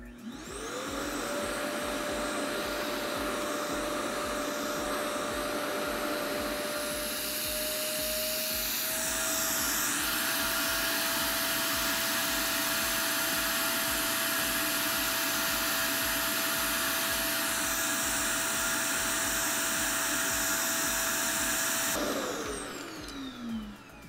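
RevAir reverse-air hair dryer's suction motor, set to 5 of its 7 settings, spinning up and running with a steady whine over a rush of air, the pitch stepping slightly higher about nine seconds in. Near the end it switches off and winds down with a falling whine.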